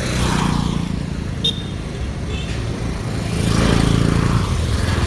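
Street traffic: motor vehicles driving past, one right at the start and a louder one about three seconds in, each engine swelling as it goes by. A short high chirp sounds about one and a half seconds in.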